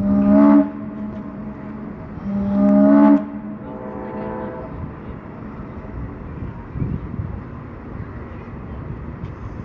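Paddle steamer's whistle sounding deep, pitched blasts: one ends about half a second in and a second loud blast follows about two seconds later, then a fainter tone. After that comes steady outdoor background noise with a few low thumps.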